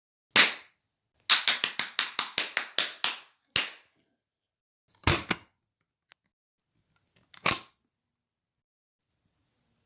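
A series of sharp knocks and cracks: a single hit, then a quick run of about ten strokes, a click, a double hit and one more hit, with silence between them.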